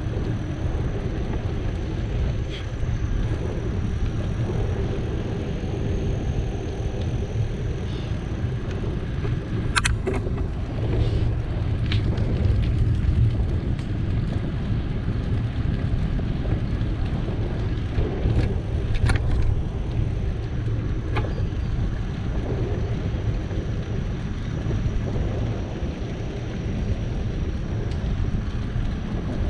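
Steady low rumble of wind on the microphone and tyres rolling during a bicycle ride, with a few sharp clicks or rattles, the loudest about a third of the way through and again about two thirds through.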